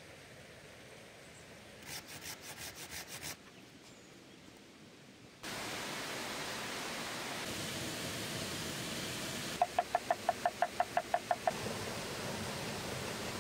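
Steady rush of a waterfall, starting about a third of the way in after a quieter stretch. Near the end comes a quick run of about a dozen evenly spaced knocks: a cleaver chopping chilies on a wooden board.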